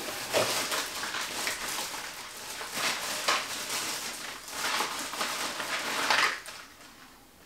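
Rummaging through a cardboard box by hand: a plastic bag crinkling and small hard items clattering against each other, in several louder bursts, dying away near the end.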